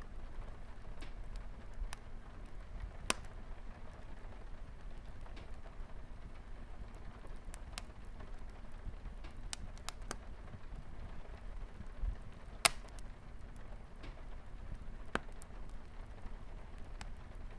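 Wood fire crackling with scattered sharp pops, the loudest about two-thirds of the way through, over a steady hiss of light rain on a window.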